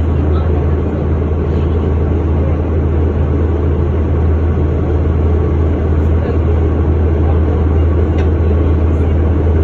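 2009 Orion VII Next Generation hybrid bus running, its Cummins ISB 6.7 diesel and BAE HybriDrive powertrain giving a steady low drone that neither rises nor falls, with a few faint ticks.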